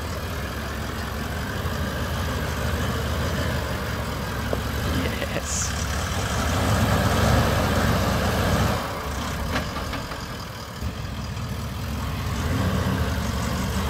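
The 4.5-litre turbo-diesel V8 of a Toyota LandCruiser VDJ76 running at low revs as it crawls over rough ground, louder for a couple of seconds a little past the middle, then easing off.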